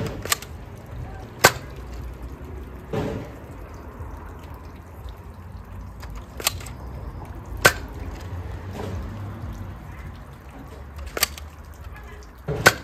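X-Shot Blastercorn spring-powered foam dart blaster being primed and fired: sharp plastic clacks in three pairs about a second apart, with softer handling rustles between shots as darts are loaded.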